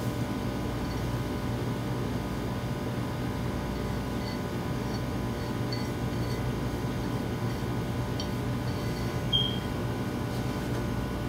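Steady low electrical or mechanical hum, with a few faint ticks and one brief high chirp about nine seconds in.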